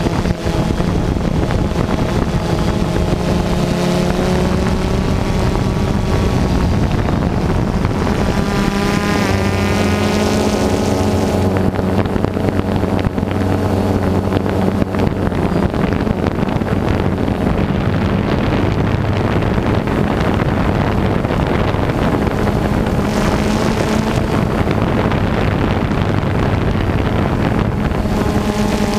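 DJI Phantom 2 quadcopter's electric motors and propellers buzzing steadily in flight, heard from the GoPro mounted on it, with wind on the microphone. About nine to ten seconds in, the pitch climbs and shifts as the motors change speed.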